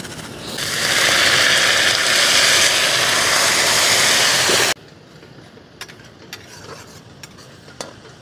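Water poured into a hot kadai of fried onion-and-spice masala, sizzling loudly with a hiss of steam. It cuts off suddenly a little under five seconds in, leaving a quiet simmer with a few clicks and scrapes of the spatula on the pan.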